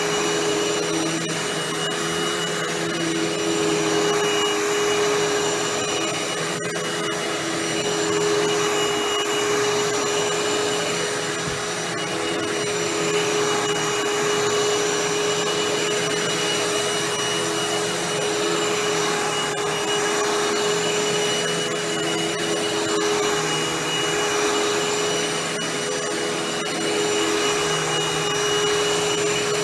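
Hoover WindTunnel Anniversary Edition bagless upright vacuum running steadily: a continuous motor whine over rushing airflow, its sound rising and falling slightly every few seconds.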